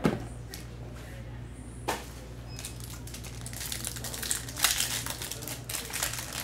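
A thump at the start and a sharp tap about two seconds in, then the crinkling and crackling of a foil trading-card pack (Upper Deck Ultimate Collection hockey) being squeezed and worked open by hand, over a low steady hum.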